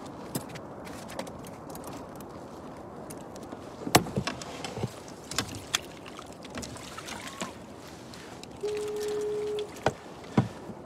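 Wire crab trap being hauled and handled against the side of a kayak: scattered sharp knocks and clicks, the loudest about four seconds in, over a noisy background of water and handling. Near the end a steady electronic beep sounds for about a second.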